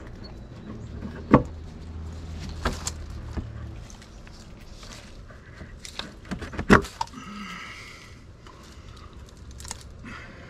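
Sharp metal clinks and knocks of a tool and fittings being worked against wooden siding. Two knocks, about a second in and past the middle, stand out as the loudest.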